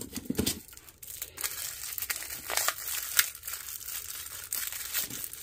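The wrapper on a roll of washi tape crinkling and tearing as the roll is unwrapped, in a run of sharp crackles.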